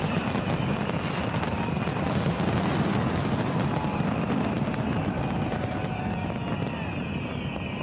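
Large fireworks display: dense rapid crackling and popping over a continuous low rumble of shell bursts, the crackles thinning out over the last few seconds.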